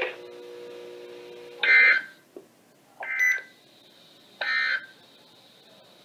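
Three short bursts of NOAA Weather Radio SAME end-of-message data tones, the raspy digital warble that closes an Emergency Alert System message, about a second and a half apart. Before them comes a faint steady low tone.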